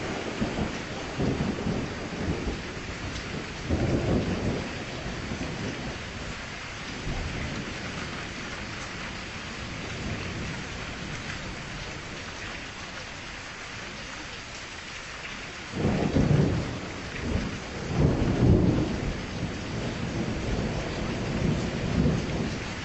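Steady rain with rolling thunder. The thunder rumbles several times in the first few seconds and again more loudly from about two-thirds of the way through.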